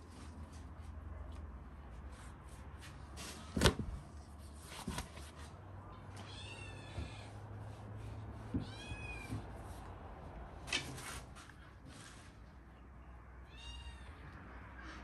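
An animal calling three times, each call drawn out and arching up and down in pitch. There are a few sharp knocks, the loudest a little under four seconds in.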